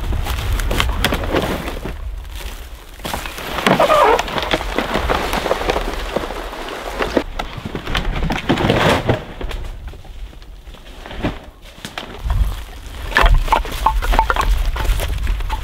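Dead sticks being snapped and gathered, with footsteps through dry grass and brush: irregular rustling and crunching, then a run of sharp knocks near the end as the sticks are laid down on the ground for a fire base. A steady low rumble runs underneath.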